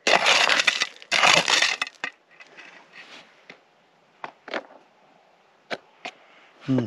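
Hand digging tool scraping and crunching into gravel and bedrock: two loud crunching strokes in the first two seconds, then a few light clicks of loose stones.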